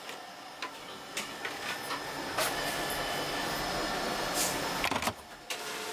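Production-line machinery running: a steady whirring hiss with scattered sharp clicks. It drops out briefly about five seconds in, then turns into a steadier machine hum with faint tones.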